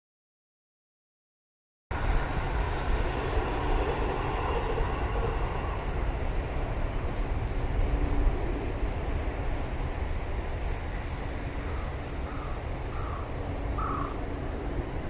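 Insects, crickets by their sound, chirping in a high-pitched pulse about twice a second over a low steady rumble. The sound starts suddenly about two seconds in, after silence.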